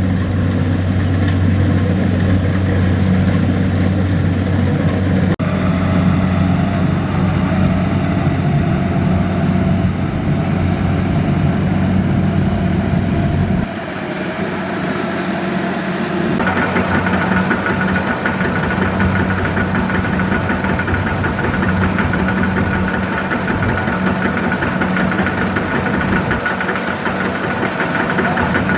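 Kubota DC-70 Plus rice combine harvester's diesel engine running steadily under load. The sound changes abruptly about 14 seconds in, when the deep hum drops away, and again two or three seconds later, when a steady high whine comes in.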